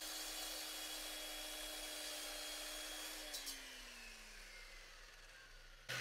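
Electric 9-inch concrete saw with a diamond blade running steadily at the end of a wet cut through a brick. About three seconds in, the trigger is released with a click and the motor and blade spin down in a falling whine. A short, louder noise comes near the end.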